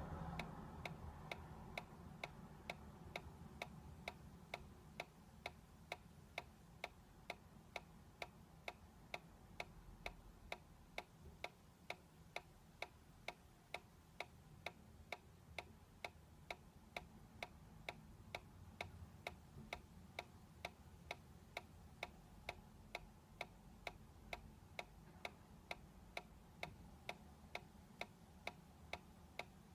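Solar-powered dancing cactus toy ticking softly as its swing mechanism rocks it, an even tick about twice a second.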